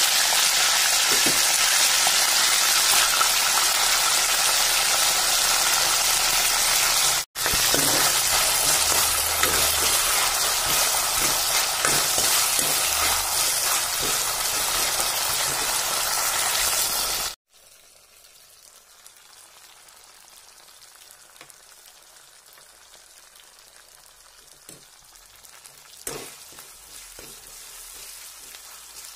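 Sliced onions frying in hot oil in a wok: a loud, steady sizzle with occasional taps of the stirring ladle. About two-thirds of the way in, the sizzle drops abruptly to a much quieter crackle.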